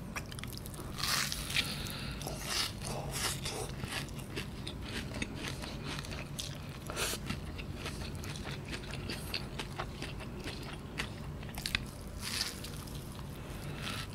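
Close-miked chewing of cheese kunafa: crisp shredded kataifi pastry crunching and crackling irregularly between softer mouth sounds.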